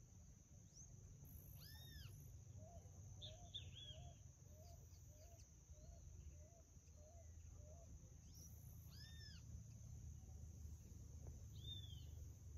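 Faint outdoor ambience with occasional animal calls. Two arching, rise-and-fall calls come about seven seconds apart, with a run of about nine short, soft chirps between them. A steady high hum and a low rumble sit under them.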